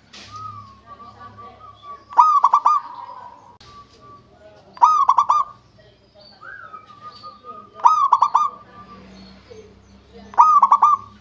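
Local zebra dove (perkutut) cooing: four loud stuttering phrases, each a rising opening note followed by a quick run of clipped notes, repeated about every two and a half to three seconds, with softer drawn-out coos between them.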